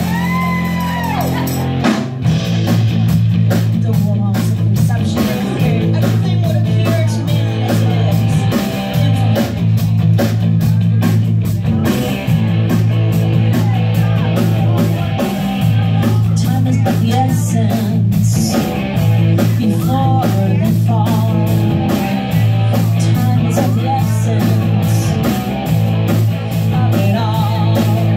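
Rock song playing: guitar and bass over a steady drumbeat, with singing.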